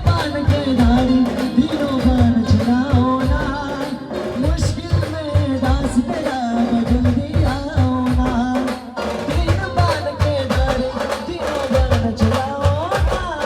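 Live Indian band music: a wavering, ornamented melody line played over steady, dense drum beats.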